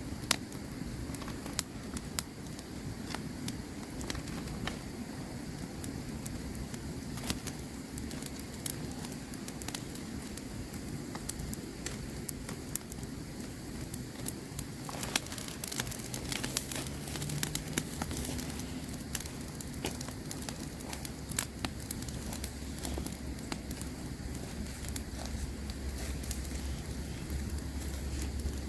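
Campfire crackling, with irregular sharp pops and snaps over a steady low hiss of the flames. A low steady rumble joins in about two-thirds of the way through.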